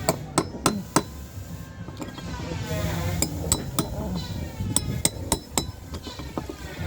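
Hammer striking a metal caulking iron in quick runs of three sharp clinking blows, knocking old caulking out of a wooden boat's plank seams.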